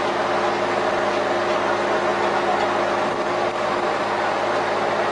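Compost turner running steadily, its machinery giving a constant hum with several steady tones under the even noise of the compost being churned and thrown.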